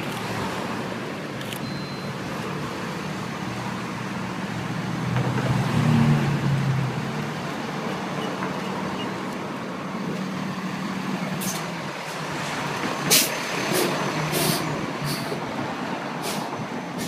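City street traffic going by, with a heavier vehicle's engine swelling louder about six seconds in. A few sharp clicks and knocks come in the second half.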